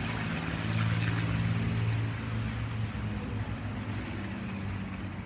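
Propeller aircraft's piston engine running on the ground, a steady drone that swells between about one and two seconds in, then eases off slightly.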